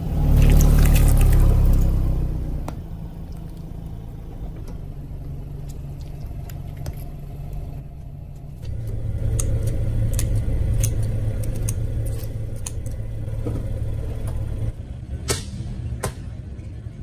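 Car engine rumbling at low speed as the car's tyre rolls slowly over and squashes objects under it. The rumble is loudest in the first two seconds and swells again about halfway through, with scattered sharp clicks and a few louder cracks near the end.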